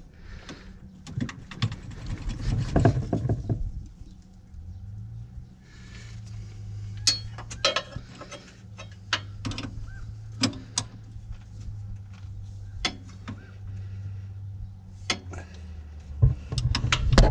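Hand wrenches clicking and clinking against the metal e-brake cable fitting as it is worked loose, in irregular taps and knocks. A steady low hum runs through the middle.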